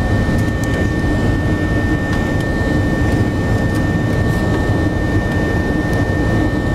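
Airplane engine and airflow noise heard inside the cabin during the climb after takeoff: a steady low rumble with a thin, steady high whine running through it.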